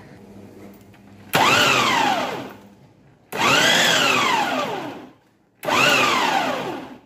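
Electric vegetable chopper run in three short pulses, chopping cooked minced mutton finer. Each pulse the motor whirs up quickly, then winds down in pitch after it is released.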